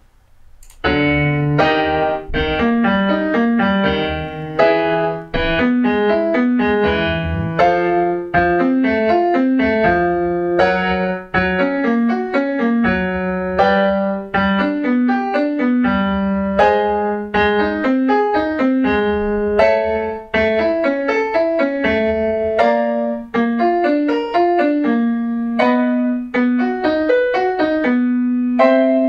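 Piano playing a fast vocal-exercise pattern: quick runs of single notes over a held low note, repeated several times as the low note shifts higher, with no voice.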